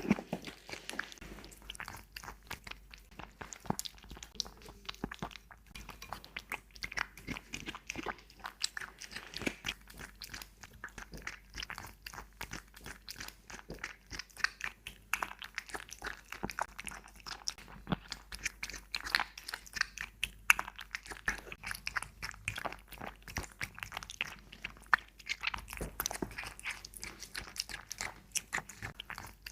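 Cat eating from close up: a dense, irregular run of quick chewing and biting clicks.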